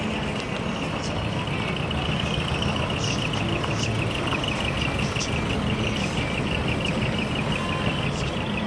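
Small cab-over decorated truck's engine running steadily at low speed as the truck rolls slowly across gravel, a low steady exhaust note.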